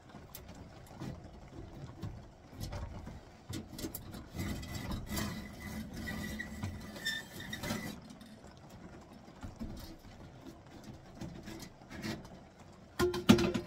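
Sheet-metal stovepipe and copper-coiled pipe being pulled apart and fitted by hand: scattered metallic clinks, scrapes and knocks. A thin, steady squeak runs for a few seconds in the middle, and a louder ringing clank comes near the end.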